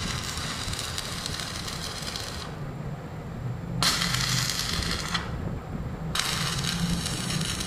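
Stick (arc) welding rod crackling and sizzling as it welds steel door hinges to a steel door frame. It comes in three runs with short breaks between, where the arc is stopped and struck again.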